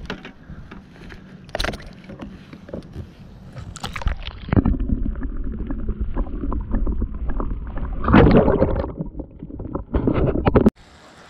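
Lake water splashing and sloshing as a hand lowers a smallmouth bass into it for release, then muffled underwater churning and bubbling once the camera goes under, with a louder swirl about eight seconds in. The sound cuts off abruptly near the end.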